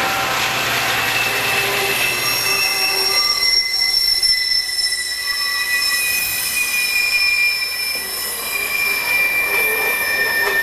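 A Santa Fe freight train rolling past close by on a curve: the diesel locomotives' low drone fades about two and a half seconds in as the units go by, and the freight cars' wheels then squeal on the rails, several high steady tones, some slowly falling in pitch, over the rumble of the cars.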